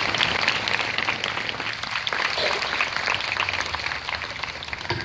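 A large audience of students applauding: dense, steady clapping that eases slightly near the end.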